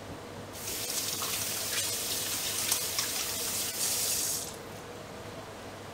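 Kitchen tap running into the sink as hands are rinsed under it: a steady rush of water that starts about half a second in and is turned off after about four seconds.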